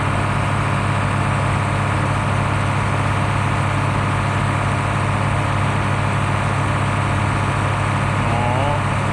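Heavy farm machine's engine, likely a tractor, running at a steady speed with a constant low drone that does not change.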